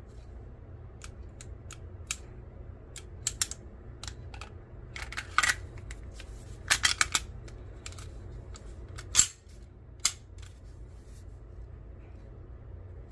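Sharp metallic clicks and clacks from a pistol being handled, coming in irregular clusters with a louder single clack near the middle, over a steady low hum.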